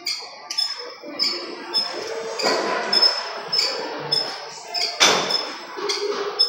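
Cable machine in use: repeated metallic clinks and knocks from the weight stack and cable handle, every half second or so, each with a short metallic ring, and the loudest clank about five seconds in.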